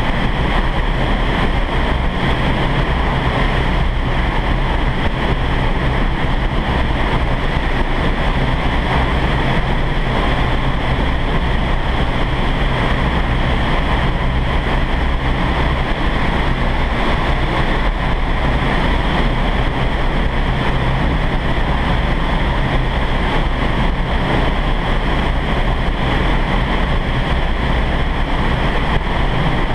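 Steady, loud rush of air in the flight chamber of a vertical wind tunnel for indoor skydiving, driven up through the mesh floor past the flyers, with wind buffeting the microphone.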